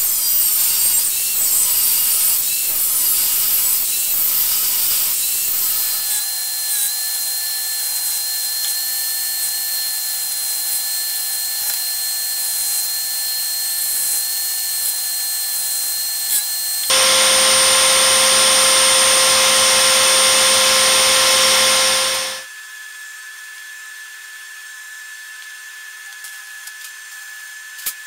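Angle grinder cutting through a round steel bar, a harsh grinding whine, for the first six seconds or so. Then an electric belt sander runs with a steady whine while a small steel piece is ground on the belt. About seventeen seconds in, a louder machine run starts, lasts about five seconds and stops abruptly, leaving a quieter steady hum with a few light clicks.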